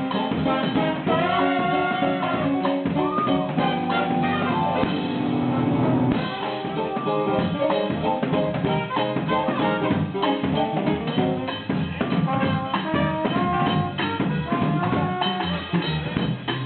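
Live band jamming: a drum kit keeping a busy groove under melodic instrument lines, in a jazzy style.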